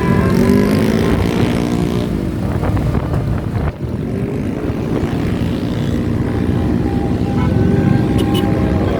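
Basuri 'telolet' multi-tone bus horn playing its tune in held notes that change pitch, over a steady low rumble; the sound breaks off briefly a little before halfway.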